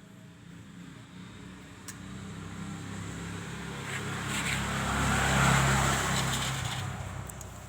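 A motor vehicle passing by, its engine and road noise growing steadily louder to a peak about five and a half seconds in, then fading.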